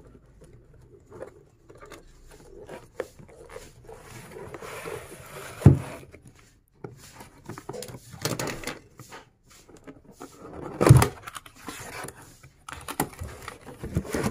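Cardboard box being handled and opened by hand: scraping and rustling of the cardboard, with a couple of sharp knocks, the loudest about eleven seconds in.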